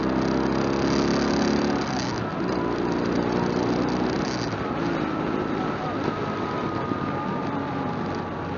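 Motorcycle engine running while riding along a highway, heard from the bike itself under a steady rush of wind and road noise. The engine note is strongest for the first two seconds and then drops back.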